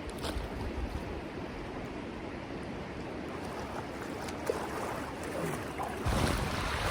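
Steady rush of river water over the rapids. About six seconds in, wind starts buffeting the microphone with a louder low rumble.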